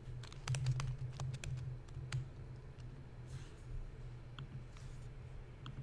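Typing on a computer keyboard: a quick run of key clicks in the first two seconds, then a few separate clicks spaced out.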